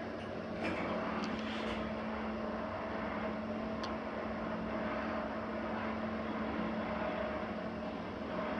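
Mitsubishi ACCEL-series rope-traction elevator car travelling between floors: a steady hum over an even rush of air.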